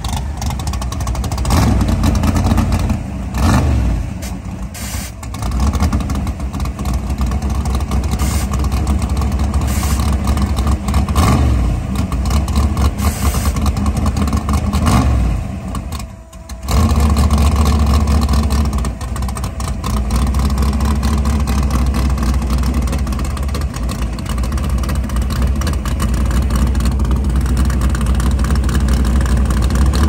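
Fox-body Mustang drag car's engine running loud and rough at idle, blipped up in revs several times in the first half, then holding a steady heavy drone.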